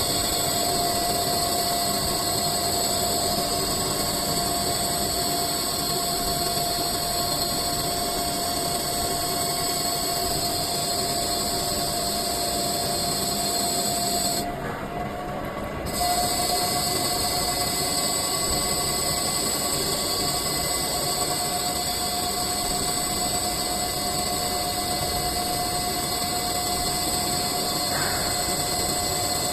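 CNC lathe turning the end of a steel cylinder into a ball: a steady machine whine under a high hiss. The hiss drops out for about a second and a half around the middle, then resumes.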